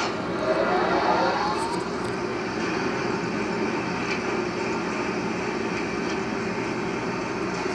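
A steady mechanical drone, like a fan or machine running, with a faint whine rising in pitch over the first two seconds.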